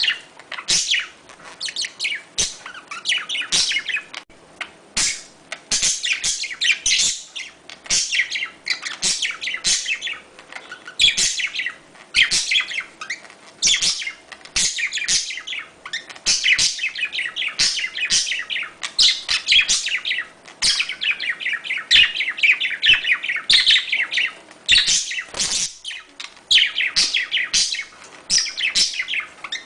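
Budgerigars chattering and warbling in quick runs of high chirps with short breaks, the courtship and mating calls of the birds.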